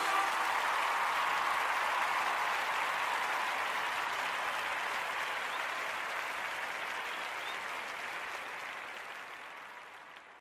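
Applause, an even wash of clapping that fades away gradually over about ten seconds.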